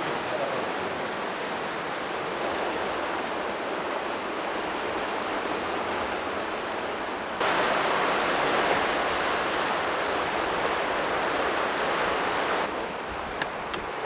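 Sea surf breaking and washing over a rocky shore, a steady rushing noise. About seven seconds in it suddenly becomes louder for about five seconds, then drops back.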